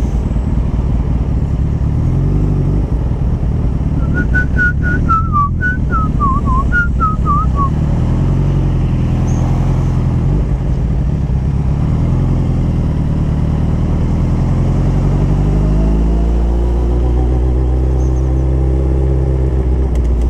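Motorcycle engine running low and steady in slow traffic. About four seconds in comes a quick run of short, high whistled notes. Near the end the engine revs rise as the bike pulls away.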